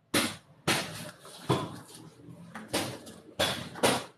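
A series of irregular knocks and clatters, about six in four seconds, each dying away quickly.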